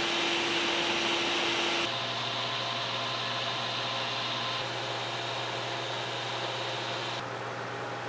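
Small electric desk fan running, a steady whir of moving air with a low hum, blowing through the fins of an aluminium transmission-cooler heat exchanger. The sound changes abruptly about two seconds in and again near the end.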